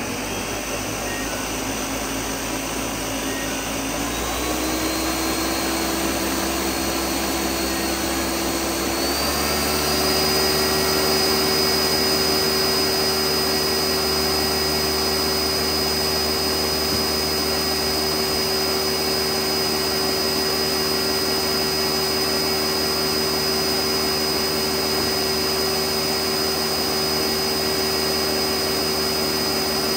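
Countertop blender running on a liquid load of oil-and-vinegar dressing, whipping it into an emulsion. The motor's whine steps up in speed about four seconds in and again about nine seconds in, then runs steadily.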